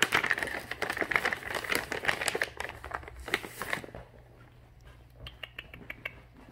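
Crinkling and clicking around a plastic treat-puzzle feeder as treats are topped up and kittens paw at it, busy for about four seconds, then fainter scattered clicks and taps.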